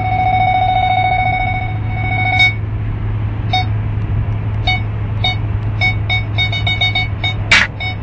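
Car parking-sensor beeper: a continuous electronic tone that breaks off about two and a half seconds in, then short single beeps that come faster and faster as the car closes on an obstacle. A steady low hum runs underneath, and there is a short loud noise near the end.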